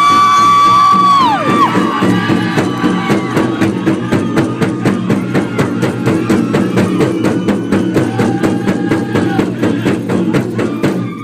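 Powwow drum and singers performing a fast fancy-dance song: a big drum struck in a quick steady beat under high-pitched singing, with a long held high note that falls away near the start. The drumming stops right at the end.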